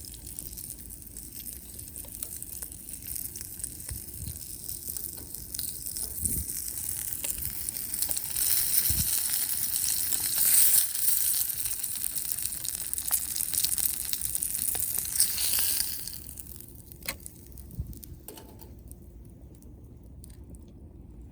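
Campfire hissing and crackling with scattered sharp pops. It swells louder about eight seconds in, then dies down about sixteen seconds in, leaving only occasional pops.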